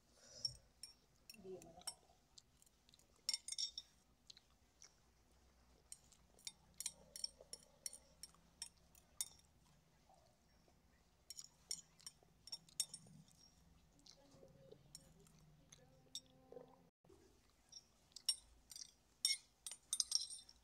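A cat eating rice from a glass bowl: faint, quick wet chewing clicks, with its teeth and tongue clinking against the glass, in irregular runs with short pauses between.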